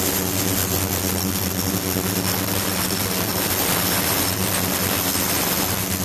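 Ultrasonic bath running under a glass jar of powder suspension: a steady buzzing hum with a hiss over it, the sound of the bath driving cavitation and acoustic streaming in the liquid.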